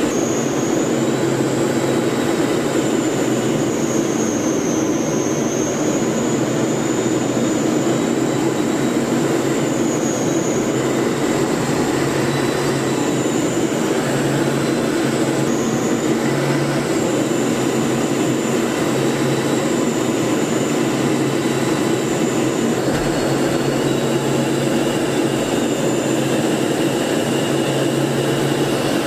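Steady in-flight engine and airflow noise heard from inside a military trainer aircraft's cockpit, a continuous drone with a faint high whine that wavers slightly in pitch.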